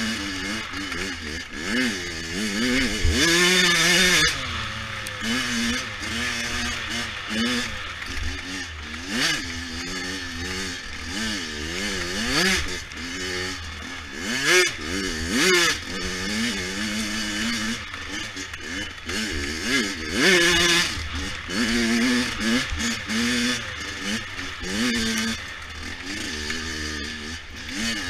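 A 100 cc dirt bike engine revving hard while it is ridden, its pitch climbing and dropping back over and over with the throttle and gear changes.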